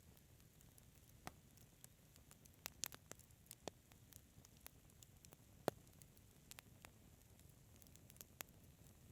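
Fireplace fire crackling, with sharp pops and snaps at irregular moments; the loudest pop comes a little past halfway.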